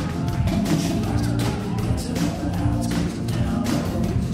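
Dance music with a steady beat.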